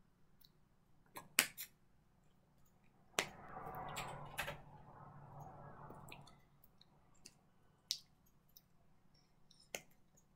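Irregular sharp clicks and taps of hands and fingers striking each other during sign language, with a few seconds of soft rustling starting about three seconds in.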